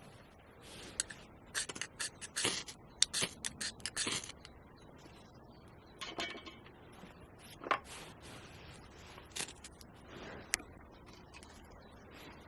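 Irregular scraping and clicking of something being handled or worked by hand: a quick run of sharp scrapes about two seconds in, then scattered single scrapes.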